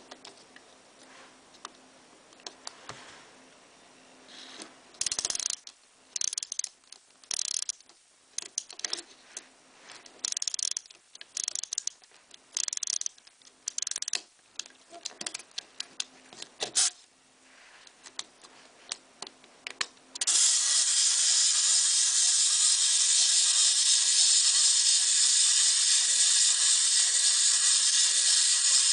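Wind-up toy robot being wound by its clockwork key in about a dozen short ratcheting strokes, then let go about two-thirds of the way through: its clockwork motor runs with a steady loud whir as the robot walks.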